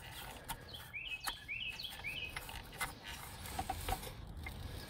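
A bird chirping a quick run of short chirps that glide up in pitch, about two a second, through the first half. Under it come a few faint clicks and knocks from a bolt on the starter being turned out by hand.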